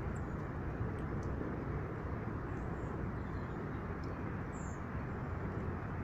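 Steady low rumbling background noise at an even level, with a few faint, very short high chirps scattered through it.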